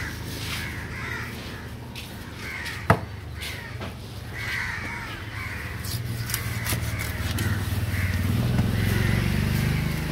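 Crows cawing repeatedly, mixed with knife strokes knocking on a wooden chopping block; one sharp knock about three seconds in is the loudest sound. A low steady hum runs underneath.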